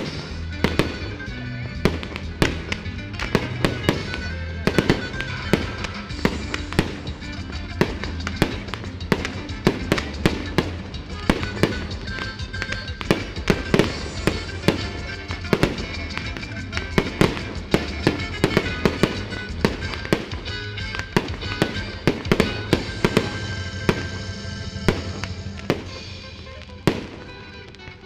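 Fireworks display: rockets and shells bursting in rapid, irregular bangs and crackles over music, thinning out and quieter near the end.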